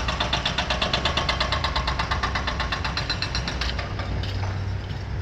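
Hydraulic breaker hammer on an excavator pounding concrete in a rapid, even rhythm as it chips out an old building foundation, stopping about three-quarters of the way through. The machine's diesel engine keeps running underneath.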